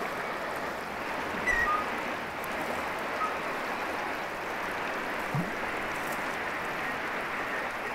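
Steady rush of a river flowing over stones.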